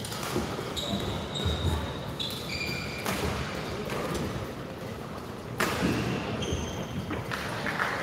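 Badminton hall ambience: short shoe squeaks on the court floor and a couple of sharp knocks, about three seconds and five and a half seconds in, over the hall's steady background noise.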